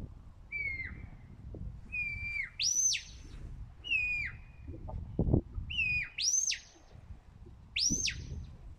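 Sheepdog handler's whistle commands: a string of short whistled notes, some sliding down and dropping off, others sweeping up high and falling back, every second or two. A low rumble sits beneath, with a single thump about five seconds in.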